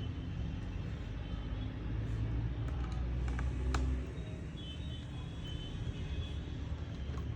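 Light clicks and taps from working on a laptop's plastic case with a small screwdriver, over a low steady rumble that drops a little about four seconds in. One sharper click comes just before that.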